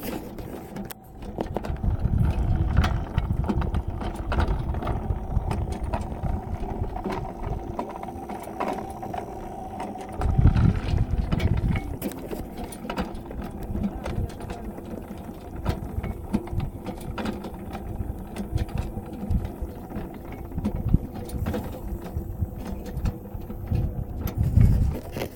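Small DC motor turning a chain of plastic car window-regulator gears that rotate barbecue skewers: a steady whine with light ticking from the gears. Low rumbles come and go, loudest about two seconds in, about ten seconds in and near the end.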